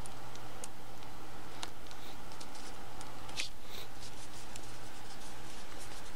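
Steel balls and rings of a skateboard ball bearing clicking lightly as fingers work the last ball into place between the inner and outer rings, with one louder click about halfway. A steady low hum runs underneath.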